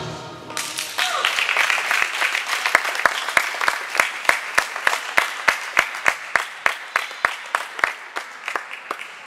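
Audience applause at the end of a rhythmic gymnastics routine, settling into clapping in unison at about three to four claps a second and fading toward the end. The routine's choral music cuts off right at the start.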